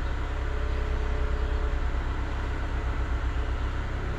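A running engine: a steady low rumble with a fast, even pulse.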